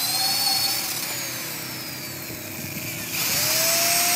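Electric power tool motor whining at speed. It winds down with a falling whine after about a second, then starts up again with a rising whine about three seconds in.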